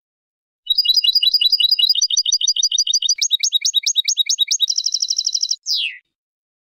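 European goldfinch singing one phrase of several rapid trills in a row, each of a different note, with a fast buzzy trill near the end and a short falling note to finish.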